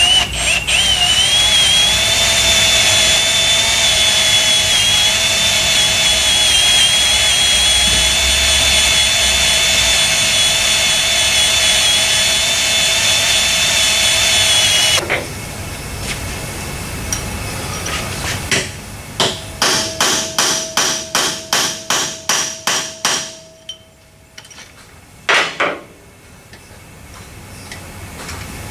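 Electric drill running steadily under load for about fifteen seconds, its pitch rising briefly as it bites, drilling out a cross-threaded lug nut and wheel stud. After a pause comes a quick run of about eighteen sharp metallic impacts over four seconds, then one more short burst.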